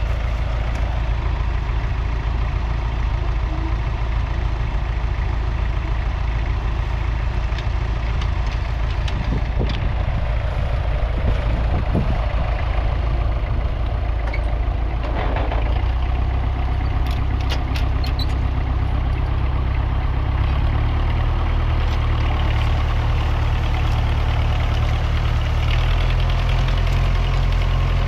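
1961 Massey Ferguson 35 tractor's 2.3-litre four-cylinder diesel engine running steadily, its note shifting a few times.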